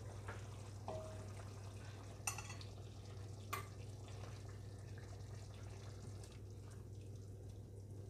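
Serving spoon scraping and clinking against a clay pot and a ceramic bowl as thick chicken curry is ladled out. There are a few faint clinks over a steady low hum.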